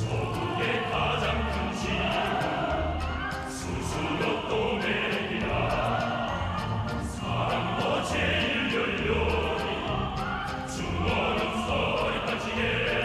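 Dance music for a mass dance: a choir singing over instrumental accompaniment, steady and continuous.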